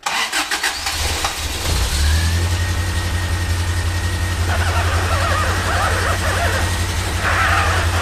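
Toyota 22RE four-cylinder engine cranking, catching within about two seconds and settling into a steady idle: its first start after the power-steering idler pulley bearing was replaced. From about four and a half seconds in, and again near the end, a wavering whine rises over the idle as the front wheels are steered with the power steering.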